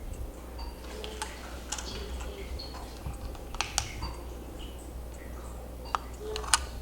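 Irregular taps and clicks of a computer keyboard and mouse being worked, with a few sharper clicks in the second half, over a low steady hum.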